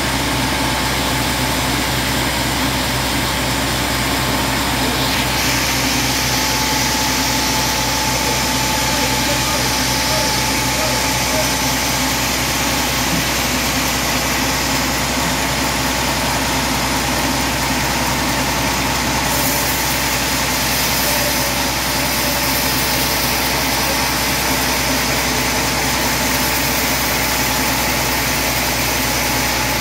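Band sawmill running steadily: a loud, even machine noise with a faint steady whine running through it, its high hiss getting stronger about five seconds in.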